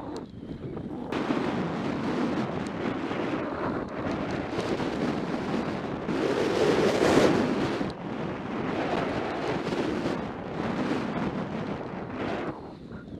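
Skis scraping and hissing over firm, cold groomed snow, mixed with wind rushing over the microphone; the noise rises and falls through the turns and is loudest about seven seconds in.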